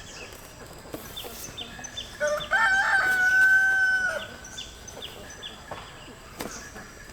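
A rooster crows once, about two seconds in: a short rising opening and then a long held note of about two seconds. Faint high chirps repeat at an even pace beneath it.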